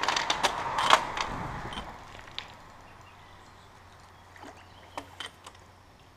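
Scraping and clattering as a landing net on a metal pole is picked up off a gravel bank and put into the water, with several sharp knocks, dying away about two seconds in; after that only a few faint clicks.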